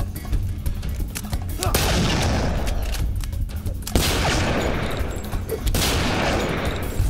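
A gunfight: rapid, sustained gunfire in three long volleys, starting about two seconds in, over background music with a steady beat.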